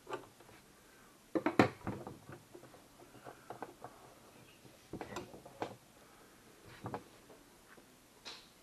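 Scattered light clicks and knocks from handling at a home sewing machine, with the loudest cluster about a second and a half in and a few more near the middle and end; the machine is not running.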